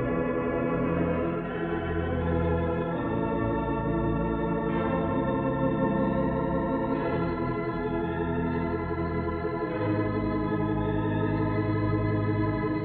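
Hilsdon 3/29 theatre pipe organ playing slow sustained chords with a wavering tremulant, the chords changing every two or three seconds.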